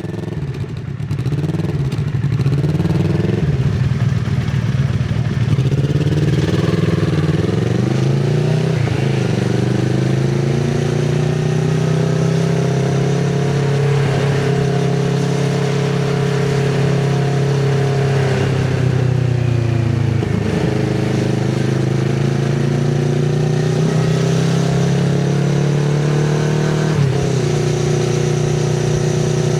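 Kawasaki Z650RS 649 cc parallel-twin engine through an IXIL MK2 full exhaust with the DB killer fitted, heard while riding: the engine note climbs and falls with the throttle, with sudden dips in pitch a few times that mark gear changes.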